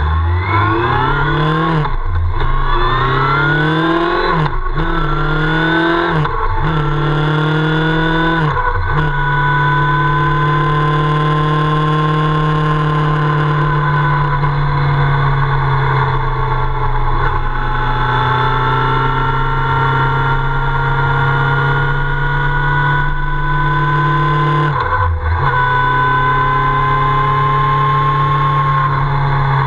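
Motorcycle engine accelerating through the gears. Its pitch rises and drops back four times in the first nine seconds as it shifts up. It then holds a steady cruise, with one more brief break in the drive about 25 seconds in.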